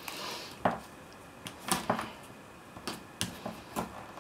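Double-sided adhesive tape being pulled off its roll with a short rasp, then a series of light clicks and taps as the tape roll and paper-covered greyboard are handled on a table.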